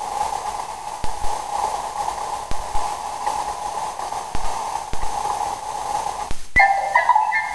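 Sound effect played by a homemade Robot B-9 model's sound board through a small amplifier and speaker: a steady, wavering electronic hum with scattered clicks. About six and a half seconds in, a click and a run of stepped electronic beeping tones begin.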